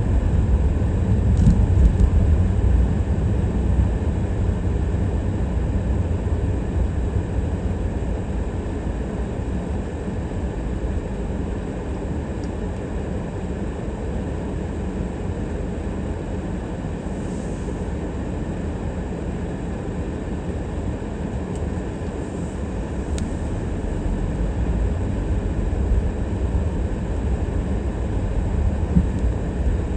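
Steady low rumble of a car driving, engine and tyre noise, easing slightly in the middle and building again near the end.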